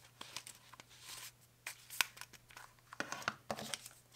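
Thin cardboard and paper rustling and scraping as a thick card sleeve of instruction papers is opened and handled, with a sharp tap about two seconds in and a run of rustling near the end.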